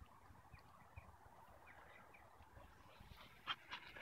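Near silence in the open: a few faint, short bird chirps, and a couple of soft clicks near the end.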